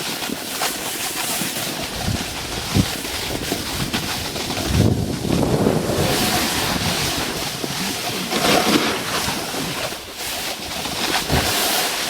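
Wind buffeting the microphone with a steady rushing hiss, as when moving fast downhill, swelling about five seconds in and again later, with a few short low thuds.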